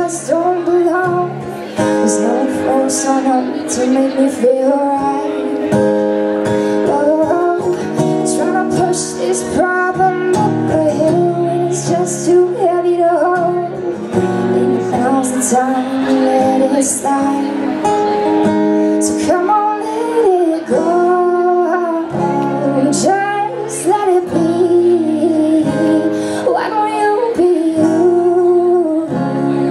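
A woman singing a song while playing an acoustic guitar.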